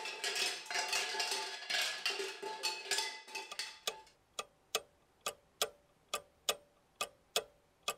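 Metal pots jingling and clanging together with a ringing tone for about four seconds, then a clock ticking steadily, about two ticks a second.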